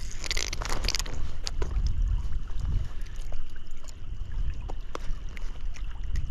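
Steady low rumble of wind on the microphone over the flowing creek, with a brief hissy splash in the first second and scattered light clicks while a hooked trout is played on a spinning rod.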